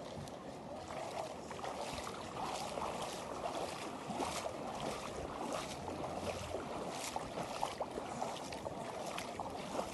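Shallow sea water lapping and splashing at the shoreline, with many small irregular splashes over a steady wash.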